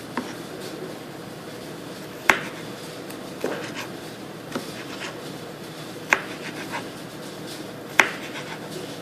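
Knife chopping garlic on a cutting board: about seven sharp, separate knife strikes at uneven intervals, the loudest about two seconds in and near the end.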